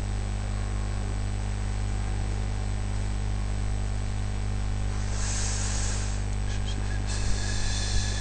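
Steady electrical mains hum with its stack of low overtones. About five seconds in a short hiss lasts about a second, followed by a few faint clicks and more hiss near the end.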